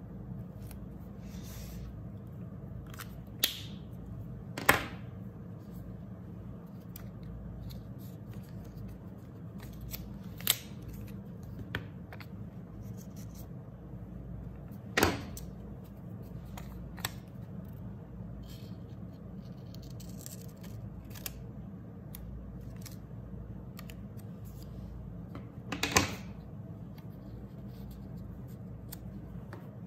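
Paper crafting at a desk: markers, scissors and paper being handled, giving a handful of short, sharp clicks and snips spread out over a steady low hum. The loudest clicks come near the middle and near the end.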